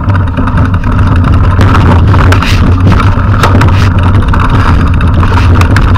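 Loud, steady wind rumble on an action camera's microphone, with many quick knocks and rattles from a Trek X-Caliber 8 mountain bike rolling over a rough gravel trail.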